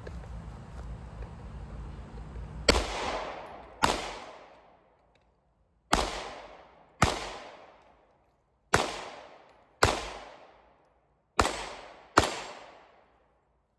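Handgun firing eight shots in four pairs, each pair about a second apart and the pairs a couple of seconds apart, as the shooter double-taps one target after another. Each shot trails off in echo.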